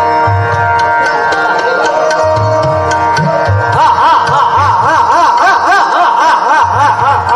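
Hindustani classical vocal performance: a male singer with harmonium drone and tabla strokes. About four seconds in, the voice breaks into fast runs that rise and fall in pitch several times a second, over the held harmonium notes.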